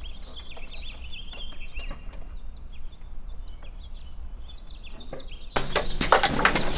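Small birds chirping, short high calls repeated again and again over a low steady hum. About five and a half seconds in, a louder stretch of knocks and clatter cuts in.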